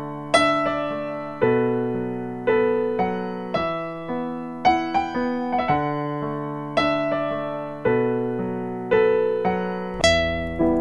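Background piano music: slow struck chords, a new one about every second, each fading away. A deeper bass note comes in near the end.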